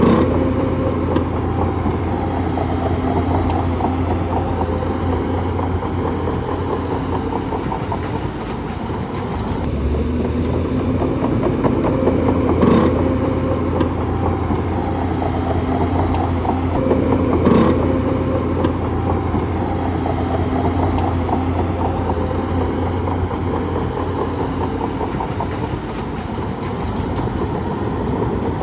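Bulldozer's diesel engine running steadily with a constant low hum, with two sharp metallic clanks a few seconds apart near the middle.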